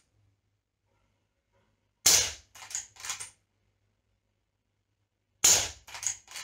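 Two shots from a .22 lever-action PCP air rifle with a silencer fitted, about three and a half seconds apart, each a sharp crack of about 95 dB on the meter. Each shot is followed within a second by two or three fainter mechanical clicks as the lever is worked to cock for the next shot.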